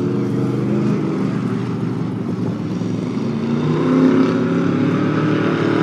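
Stock car's Chevrolet 350 V8 engine running around the oval, its pitch rising and falling and getting louder about four seconds in.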